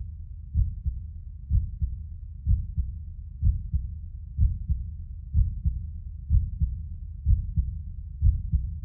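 Slow heartbeat sound effect: a deep double thump, about one beat a second, each loud beat followed by a softer one.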